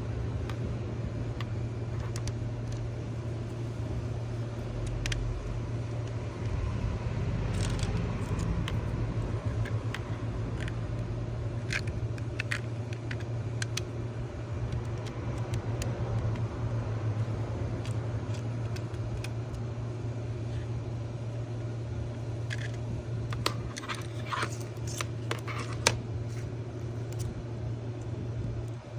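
Scattered small clicks, taps and light scrapes of hardware being handled, over a steady low hum.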